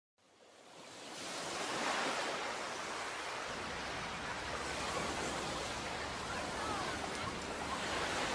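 Small waves washing up and back over a sandy beach, a steady rushing surf that fades in from silence over the first second or two, with the wash swelling about two seconds in and again near the end.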